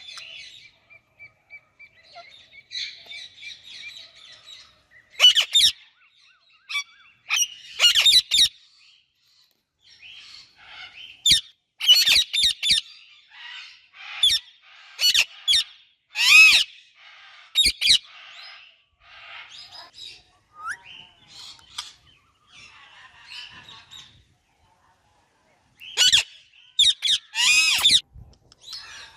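An Indian ringneck parakeet and an Alexandrine parakeet chirping: soft, continual chatter broken by clusters of loud, shrill calls, several in the middle stretch and another burst near the end.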